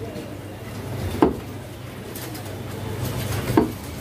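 Butcher's cleaver chopping meat on a wooden log chopping block: two heavy strikes, about a second in and near the end, over a steady low hum.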